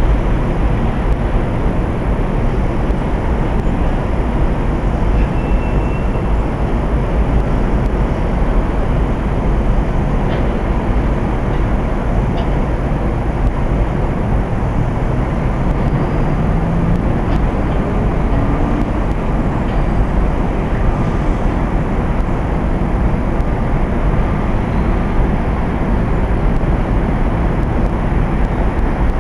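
Steady, loud rushing noise with a deep rumble underneath, even throughout.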